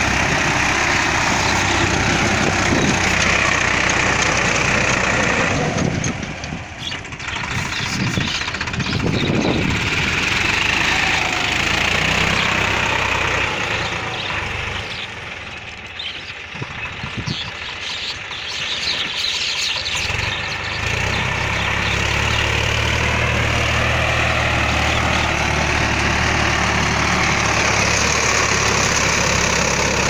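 Swaraj 960 diesel tractor engine running steadily as it pulls a rotavator through the soil. It grows quieter for a while around the middle, then comes back loud with a strong low hum for the last third.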